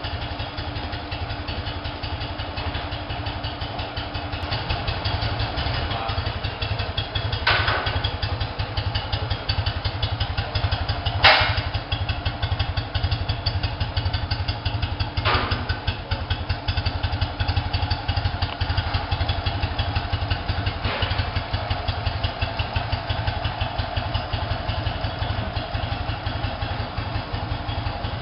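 A 1966 BMW R60/2's air-cooled flat-twin engine idling steadily, a little louder from about five seconds in. A few short sharp knocks sound over it, the loudest about eleven seconds in.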